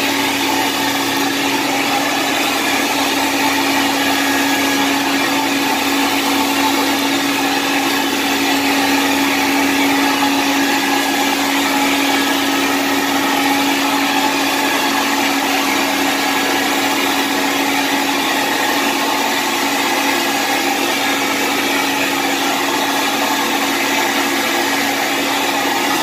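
Carpet-cleaning machine running steadily: a continuous vacuum-type motor whine with a steady low hum, unbroken throughout.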